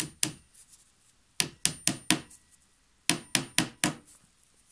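A hammer driving a nail into the side of a wooden workbench: quick strikes in three runs, two, then four, then four, each with a short high ring.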